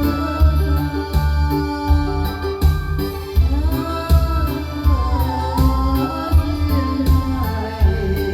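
Instrumental backing music of the song, with a steady beat and a bass line under sustained keyboard chords; a lead melody with gliding notes plays through the middle.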